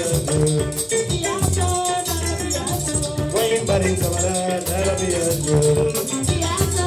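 Live kora band music: kora, electric guitar, bass and drum kit playing over a steady shaker-like rattle beat.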